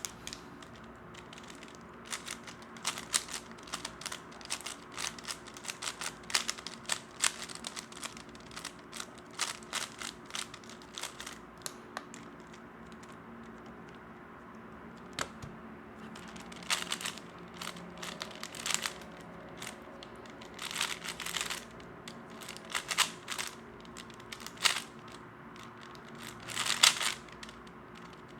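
Plastic 3x3 speedcube being turned fast: dense runs of quick clicks and clacks, with a lull of a few seconds about halfway through before the turning starts again.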